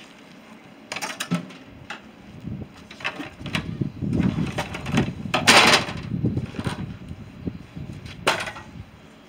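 Parts of a scrapped boiler unit being handled and knocked about while it is taken apart: irregular clanks and knocks, with a short, loud burst of harsh noise about five and a half seconds in and a sharp knock near the end.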